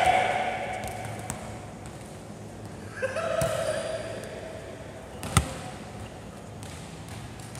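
A volleyball bouncing and being struck on the wooden floor of a large sports hall, with one sharp smack a little over five seconds in. Players shout briefly at the start and again about three seconds in.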